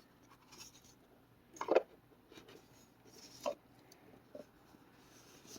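Cardboard card box and deck being handled: soft rubbing and rustling with a few short, light knocks, the loudest about a second and a half in.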